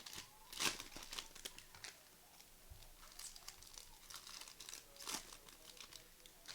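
Foil trading card pack wrappers being torn open and crinkled by hand, in quick crackly bursts, the loudest near the start, more around the middle and about five seconds in.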